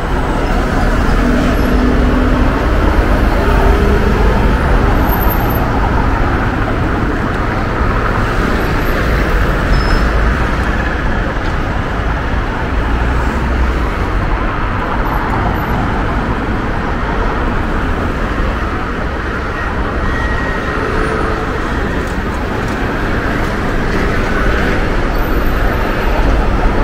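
Steady road traffic on a busy city street: a constant rush of passing cars and other motor vehicles, engines and tyres, with heavy low rumble.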